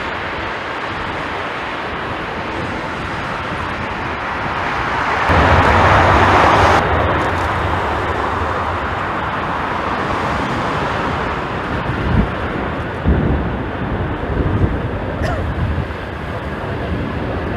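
Jet airliner engine noise under strong, gusting wind that buffets the microphone. A louder, deeper gust hits about five seconds in and cuts off abruptly, and more uneven gusts follow later.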